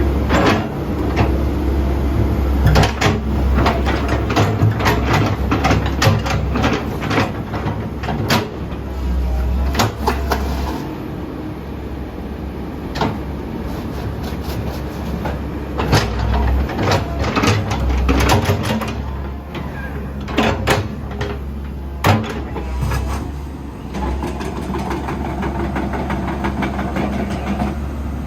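Komatsu PC138US-8 hydraulic excavator working: its diesel engine runs with a steady low drone, while sharp metallic clanks and knocks come from the machine many times over.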